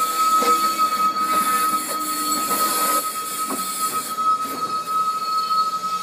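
Metre-gauge MOB passenger coaches running past at close range, their wheels giving one steady high squeal. A few irregular clacks come from the wheels on the track.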